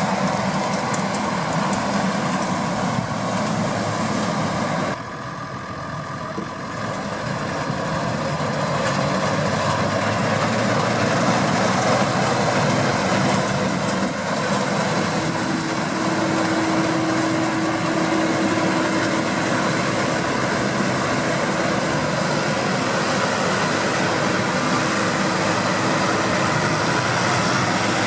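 Deutz-Fahr 6060 combine harvester running steadily while harvesting, its engine and threshing machinery giving a continuous broad mechanical noise. The level drops briefly about five seconds in, then builds back, and a steady whine joins about halfway through.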